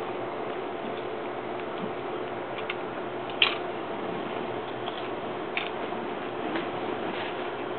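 Someone chewing hard-shell tacos, with a few short crisp crunches of the shell. The loudest crunch comes a little over three seconds in, over a steady background hum.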